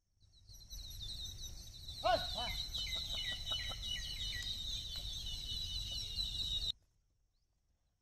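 Birds chirping and calling in many quick, repeated high notes, with a couple of lower, falling calls about two seconds in; the sound cuts off abruptly near the end.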